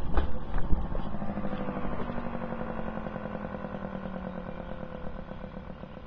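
Federal Signal Model 2T dual-tone electromechanical siren winding down after being switched off: its two tones slide slowly lower in pitch and fade. There are a few knocks in the first second.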